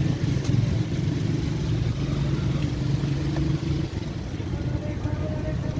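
Motor engine idling steadily amid street traffic noise; its low hum eases off a little under four seconds in.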